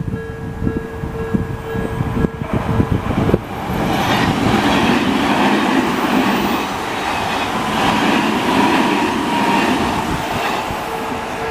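Odakyu-type level crossing alarm ringing rhythmically. About three and a half seconds in, a train runs loudly over the crossing with clacking wheels, and the alarm tone comes through again near the end.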